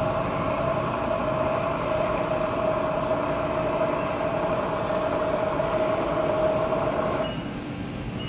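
Trak DPM bed mill's table traversing under its axis drive motor: a steady whine over rumbling mechanical running noise, stopping abruptly about seven seconds in.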